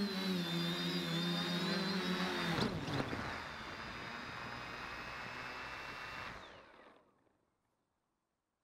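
Quadcopter's electric motors and propellers buzzing, heard from its onboard camera, with a high whine above the drone. A little over two and a half seconds in, the pitch and level drop sharply as the craft sets down and throttles back. A softer hum runs on, then fades away around seven seconds in, leaving near silence.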